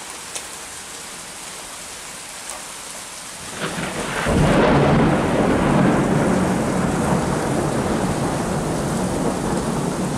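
Steady rain hiss during a thunderstorm. About four seconds in, a crack of thunder swells into a long rolling rumble that slowly fades.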